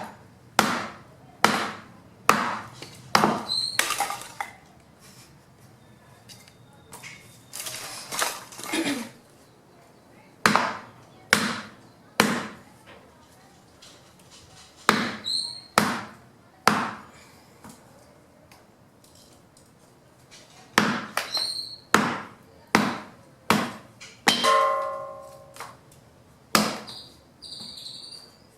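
Fallen branches being chopped by hand into wood chips: sharp chopping strikes on wood, some in quick runs and some singly, with pauses between.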